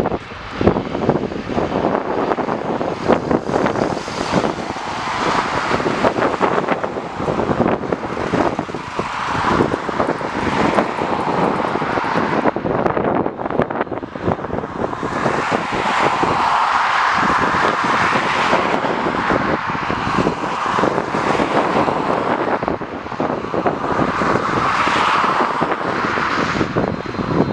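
Jet airliner engines running, swelling louder in the second half. Strong wind buffets the microphone throughout.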